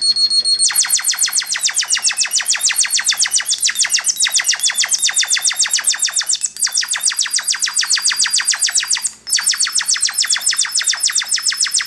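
Small Korg synthesizer playing a fast, even pulsing tone, about eight pulses a second, with a thin high pitch that slides up and down. It breaks off briefly about nine seconds in, then resumes.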